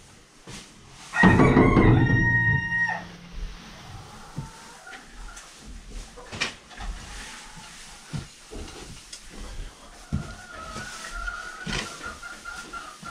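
A rooster crows once, about a second in, a long held call that breaks off after nearly two seconds. Quieter rustling of hay and light knocks of a hay fork follow.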